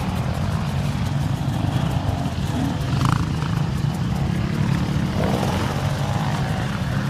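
Several enduro dirt bike engines running and revving under load on a steep, rutted hillclimb, a steady dense engine sound.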